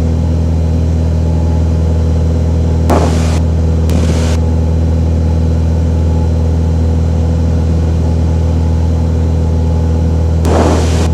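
Cessna 182's piston engine and propeller droning steadily in flight, heard through the cockpit headset intercom audio. Three brief bursts of hiss cut in over the drone.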